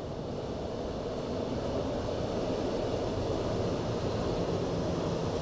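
KTM Komuter Class 83 electric multiple unit running over a bridge: a steady rumble that grows gradually louder as it approaches.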